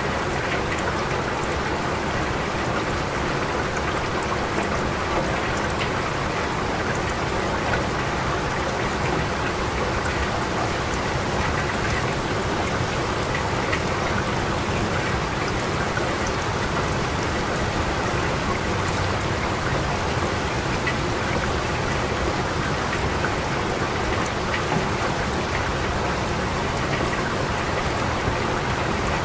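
Steady rain falling, an even hiss with scattered individual drops ticking through it.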